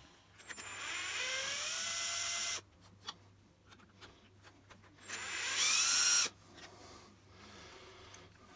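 Ryobi cordless drill-driver turning screws on an RC truck chassis. It runs twice: first for about two seconds, then for about a second, each time with a whine that rises in pitch as the motor spins up and then holds steady.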